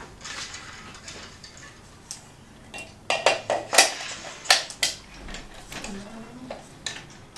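Metal reflector dish knocking and clicking against a studio LED light head as it is handled and fitted on, with a quick cluster of sharp metallic clinks in the middle.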